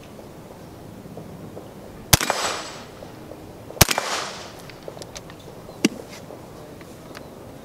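Two shots from a Ruger 10/22 .22 LR semi-automatic rifle, about a second and a half apart, each trailing off in a short echo. A fainter sharp click follows about two seconds after the second shot.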